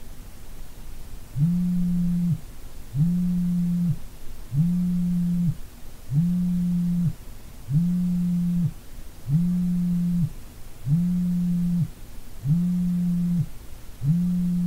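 Mobile phone on vibrate, buzzing with an incoming call: a low buzz of about a second, then a short gap, repeated nine times at an even pace.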